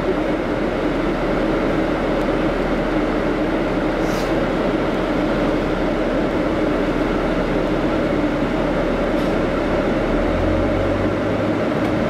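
Steady drone inside a moving air-conditioned city bus: engine, road noise and a constant hum, with a deeper rumble swelling briefly about ten seconds in.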